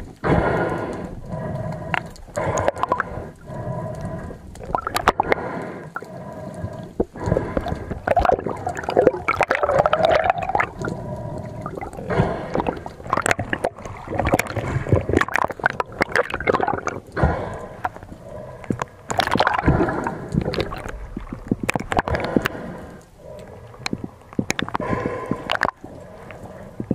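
Water gurgling and sloshing with frequent sharp clicks and knocks, in uneven swells.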